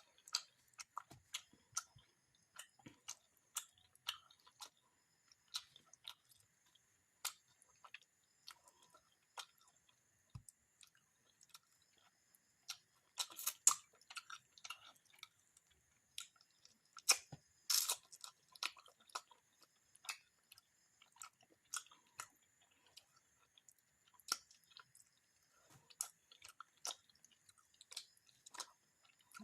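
Close-up chewing of fried fish and rice: irregular wet mouth clicks and smacks throughout, with two louder bursts of biting about halfway through and again a few seconds later.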